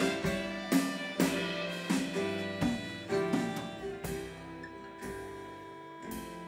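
Live folk band playing an instrumental passage on fiddle, upright double bass, acoustic guitar and drums. There are sharp accented hits through the first four seconds, then the playing settles into held notes and gets a little quieter.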